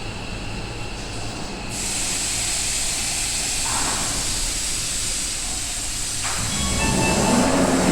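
Seibu 40000 series commuter train at the platform, its running and wheel noise under a loud air hiss that starts suddenly about two seconds in. Near the end short electronic tones sound as activity picks up around the doors.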